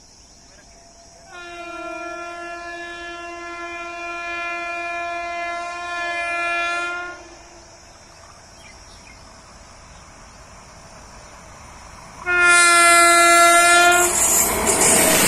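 WAP-7 electric locomotive's horn: one long steady blast of about six seconds that grows louder, then a short blast of under two seconds near the end. The rush and rumble of the approaching train takes over loudly as the locomotive reaches the microphone.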